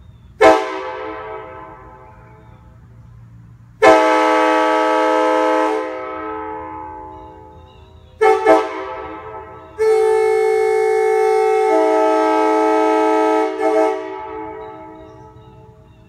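Sandcast Nathan K5H train horn run as a four-chime K4H, its fifth bell blanked off, sounding its chord in blasts: a short toot, a long blast of about two seconds, two quick toots, then a long blast of about four seconds whose chord shifts partway through. Each blast dies away with a long echo.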